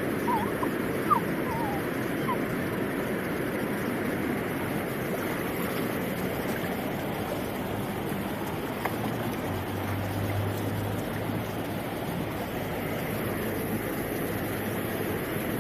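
Shallow creek water running steadily over stones, a constant rushing noise close to the microphone.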